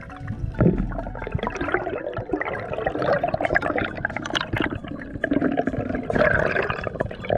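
Underwater rushing and bubbling of water and air bubbles over the camera, a dense crackling hiss that sets in about half a second in.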